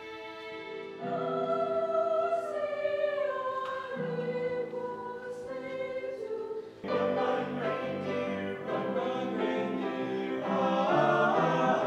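School choir singing in concert, heard as edited excerpts. A quieter instrumental passage gives way to the choir about a second in, and an abrupt cut about seven seconds in brings a louder, fuller choral passage.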